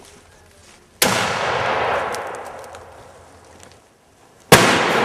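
Two loud explosive bangs about three and a half seconds apart, each followed by a long fading rumble and echo, with a few faint sharp snaps in between.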